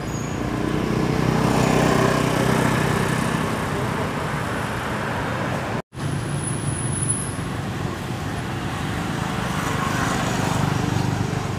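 Motor vehicle engine and traffic noise, swelling about two seconds in and then easing off, with a brief complete dropout in the sound just before the middle.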